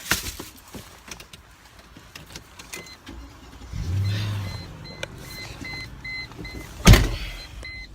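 Getting into an SUV: the car's warning chime beeps over and over, the engine starts about four seconds in, and the door slams shut about a second before the end.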